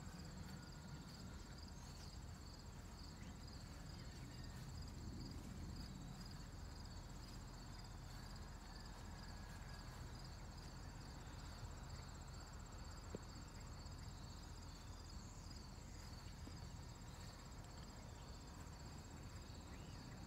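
Crickets chirping steadily, a faint, high, evenly pulsing trill over a soft low rumble.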